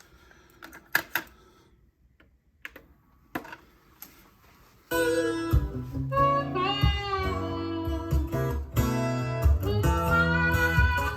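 A few sharp clicks over a quiet background, then about five seconds in, guitar music starts abruptly: a cassette playing back on a recapped Pioneer T-1100 cassette deck.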